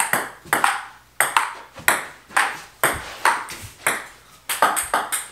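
Ping pong rally: a string of sharp taps as the ball strikes the paddles and the table in turn, often in close pairs, about two to three a second, coming faster near the end.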